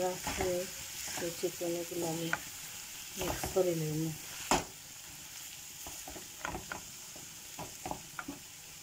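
Wooden spatula stirring potatoes and chicken in an aluminium karahi, scraping and knocking against the pan over a soft steady frying sizzle. A few short pitched sounds come in the first half, and the sharpest knock comes about halfway through.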